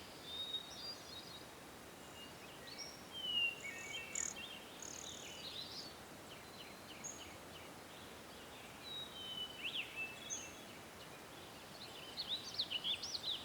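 Birds chirping and whistling faintly, with short calls scattered throughout and a cluster of quick chirps near the end, over a quiet outdoor background hiss.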